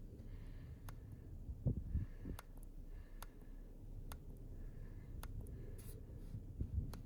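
Quiet handling noise: scattered light clicks, with a couple of soft thumps about two seconds in.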